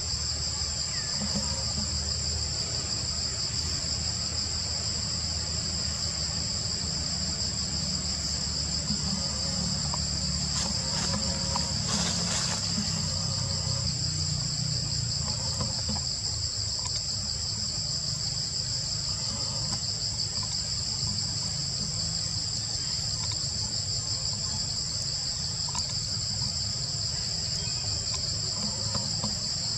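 Steady, unbroken high-pitched insect chorus in two overlapping pitches, over a low rumble.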